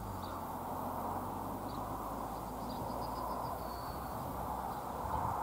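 Outdoor ambience: a steady faint hiss of background noise with a few short, high bird chirps, including a quick run of chirps about three seconds in.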